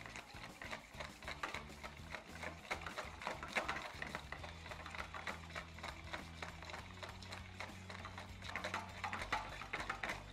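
Wire balloon whisk beating thick mayonnaise in a bowl: a fast, continuous run of clicks and swishes as the tines hit the bowl. Soft background music underneath.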